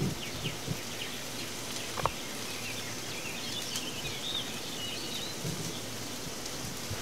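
Steady outdoor background hiss with a small bird chirping a few times midway, and a single light click about two seconds in.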